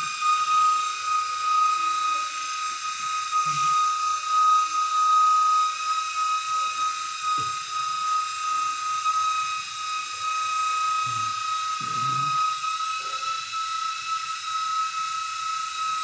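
A steady high-pitched whistling tone holds one unchanging pitch over a background hiss, with a few faint low knocks.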